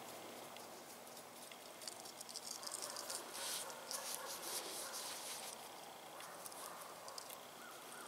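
Faint handling noise: rustling with a run of small crackling clicks from about two seconds in until about five seconds in, as hands work paracord and a small folding multi-tool.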